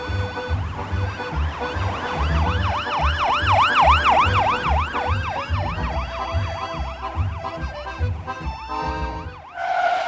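Ambulance siren sweeping quickly up and down, about three rise-and-falls a second, loudest in the middle and fading out, over background music with a steady low beat.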